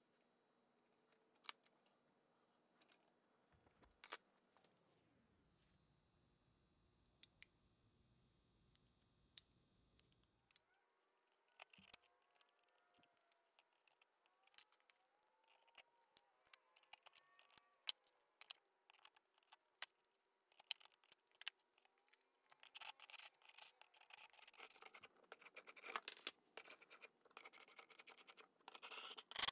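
Light metallic clicks and taps as compressor valve parts are handled and fitted into the pump's cylinder head. The clicks are sparse at first, then come thick and fast for the last several seconds.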